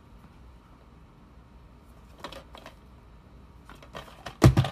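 Plastic DVD cases clicking and knocking against each other as they are handled: a few light clicks about halfway through, then a louder clatter of sharp knocks near the end.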